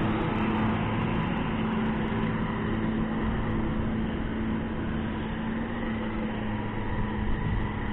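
Motorcycle engine running at a steady cruising speed, a constant hum under wind and road noise.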